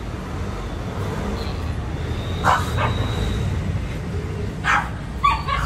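Dogs giving short, sharp barks and yips, a pair about two and a half seconds in and several more near the end, over a steady low background rumble.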